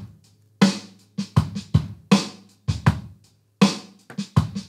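Programmed MIDI drum groove played back on Logic Pro X's Brooklyn software drum kit at 80 BPM: kick, snare and hi-hat, with soft ghost notes on the snare and kick. The kick ghost notes, set to about velocity 55, are still too hot.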